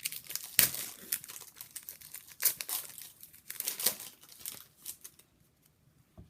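Crinkly wrapper being crumpled and torn open: a hockey card pack or box wrapping being unwrapped by hand, with rapid crackles that stop about five seconds in, then a single small click near the end.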